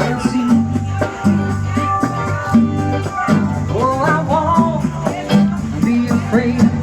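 Live band music with guitar and a steady bass line.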